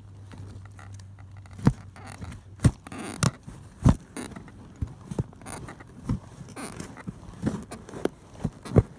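Steel spade being driven into soft soil in a trench, close up: irregular sharp scrapes and thuds as the blade cuts into the earth, with a boot pressing the spade down near the end.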